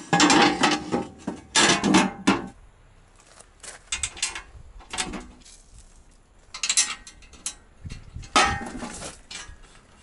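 Hand tools and metal parts clicking and clattering against the steel step and chassis of a Case backhoe in irregular bursts, busiest in the first couple of seconds and again in short bursts later.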